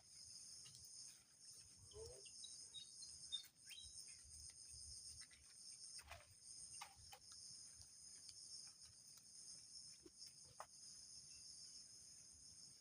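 Faint, steady high-pitched chirring of insects, with a few small clicks and knocks over it.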